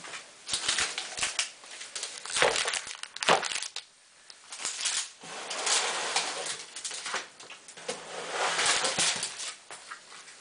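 Large plastic soap mold box being set down and shifted about on a countertop: a few knocks and clunks in the first few seconds, then longer stretches of scraping and rustling as it is pushed and handled.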